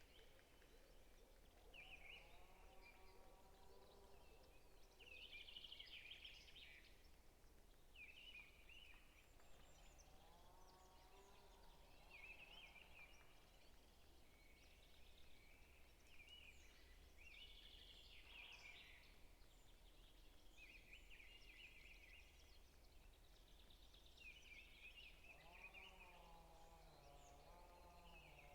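Faint forest birdsong: one bird repeats a short, bright phrase about every two seconds, and a lower, warbling call joins in a few times, loudest near the end, over a faint steady low background hum.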